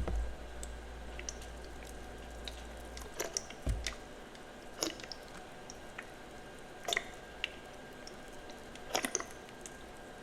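Soft chalk crunching in short clusters of crisp snaps, a few seconds apart, over a low hum that stops about three seconds in.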